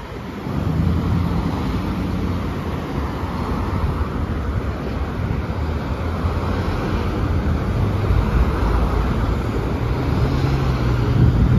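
Road traffic: cars and SUVs passing close by, a low engine drone over tyre and road noise, swelling to its loudest near the end.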